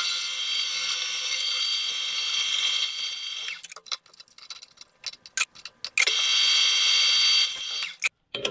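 Power tool running with a steady high-pitched whine in two spells, the second cutting off suddenly near the end, with a few sharp clicks and knocks in the gap between them.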